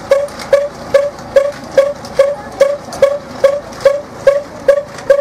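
A machine running with a steady, even beat of about two to three knocks a second, each knock carrying a short ringing note.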